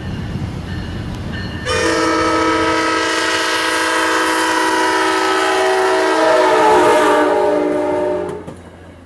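Approaching commuter-train diesel locomotive rumbling, then sounding one long multi-tone air-horn chord of about six seconds whose pitch sags slightly as it passes before cutting off, leaving the low rumble of the passing coaches.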